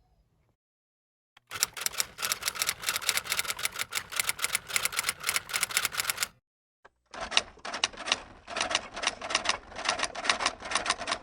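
Typing on a keyboard: rapid key clicks, about six to eight a second, in two runs with a short pause between them.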